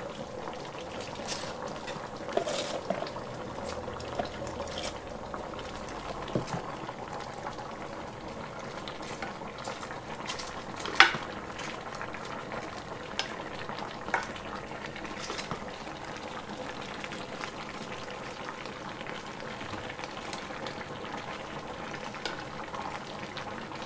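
Pot of pork puchero bubbling steadily, with scattered small pops and ticks and one sharp click a little under halfway through.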